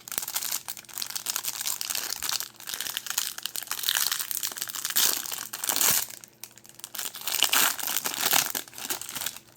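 Packaging of a trading-card hanger box being opened by hand: irregular crinkling and crushing of the cardboard and wrapper, louder in swells about halfway through and again near the end, then stopping abruptly.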